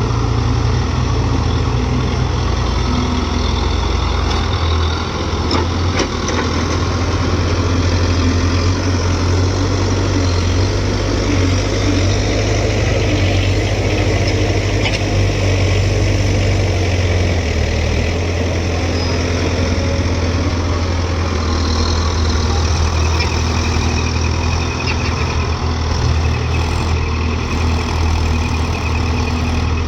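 Diesel engine of a JCB 3DX backhoe loader running steadily under work, its low hum shifting slightly now and then.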